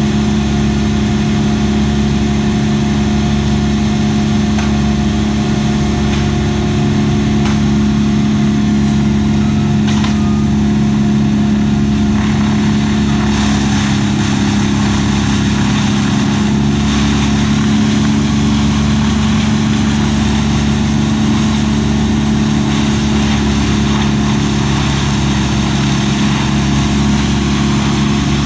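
An engine running steadily at an even speed, with a constant low hum; about halfway through a rougher, hissing noise joins in above it.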